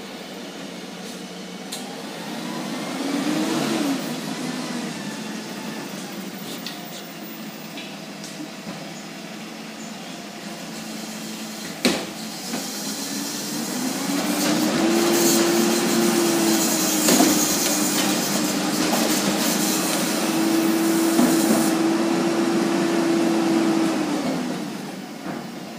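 Rear-loader garbage truck working at the curb: a single sharp bang about twelve seconds in, then the engine speeds up and holds for about ten seconds while the hydraulic packer cycles, before falling back to idle. Earlier a brief engine swell rises and falls.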